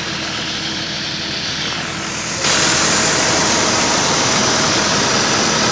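Maize threshing machine and its engine running, a steady mechanical noise with a faint constant hum. It jumps suddenly louder about two and a half seconds in.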